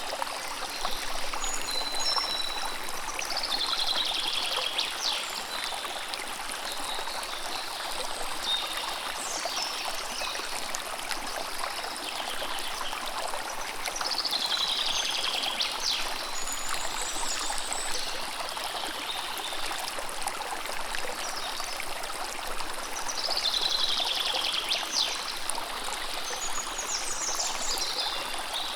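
River water running steadily over stones, with a songbird singing a short phrase that falls in pitch three times, about ten seconds apart, and a few brief chirps between.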